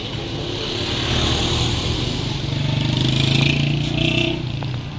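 Street traffic with a vehicle engine running close by. It swells to its loudest about three and a half seconds in, then eases off.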